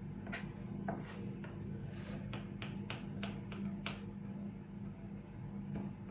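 Small florist's knife chopping garlic finely on a cutting board: irregular light knocks, about two a second, over a faint steady low hum.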